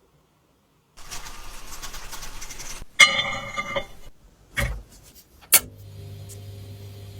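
Workshop handling of metal parts: a rough scraping for about two seconds, then a loud ringing metallic clink and two sharp knocks, after which a low steady hum sets in.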